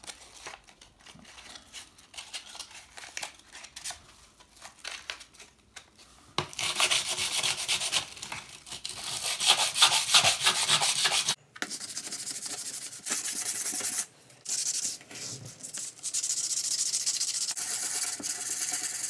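Sandpaper rubbed by hand back and forth over a steel knife blank, taking off the black heat-treat scale. Light handling clicks first, then the sanding starts about six seconds in and goes on in spells with short breaks.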